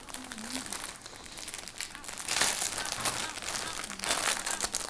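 Crinkly packaging around skeins of yarn being handled and rustled, louder about two and a half seconds in and again near the end.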